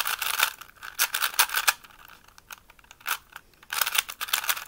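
Rubik's-brand 3x3 cube being turned quickly by hand, its plastic layers clicking and clacking in four quick bursts of turns with short pauses between.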